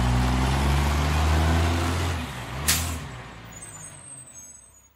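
Garbage truck engine running with a low steady rumble, then a short air-brake hiss a little under three seconds in, after which it fades away.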